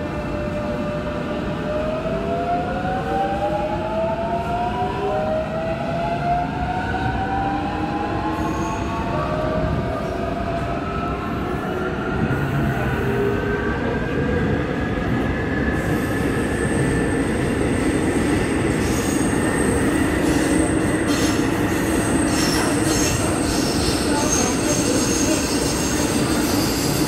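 Incheon Metro Line 1 train's Alstom IGBT traction inverter and motors whining as the train pulls away from a station. Several tones glide upward together for about fifteen seconds as it accelerates, then level off into steady running over the rumble of the wheels on the rails.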